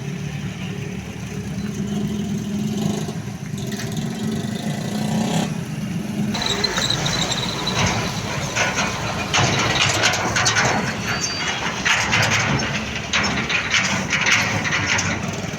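Road traffic: vehicle engines running with a low steady hum, then a brief high-pitched squeal about six seconds in, followed by louder, rougher rushing noise of passing vehicles through the second half.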